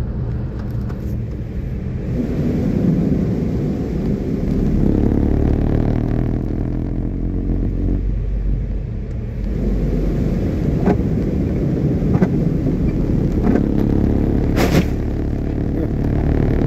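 Vehicle driving through floodwater covering the road: a steady rumble of tyres and engine with water spraying up against the windshield and body, swelling in waves. A few light clicks and one sharper knock near the end.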